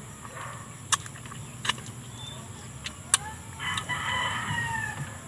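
A rooster crowing once, a drawn-out call in the second half that sags slightly in pitch at the end. A few sharp clicks come before it.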